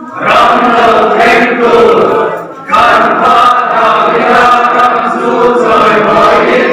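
A congregation of men and women singing together in phrases, with a brief break for breath about two and a half seconds in.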